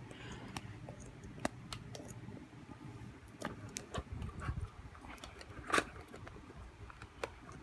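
Speaker packaging being handled as the charger and parts are fitted back into the box: scattered clicks, taps and short rustles. The sharpest click comes near the six-second mark.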